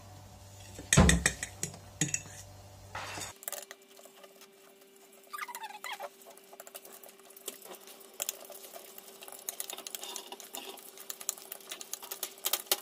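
Metal fork whisking egg and flour into a batter on a ceramic plate, its tines clicking and scraping against the plate in quick strokes that grow busier toward the end. A louder thump about a second in.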